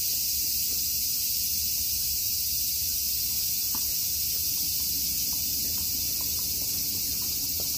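A steady chorus of insects: a dense, high-pitched hiss that holds without a break, over a faint low rumble.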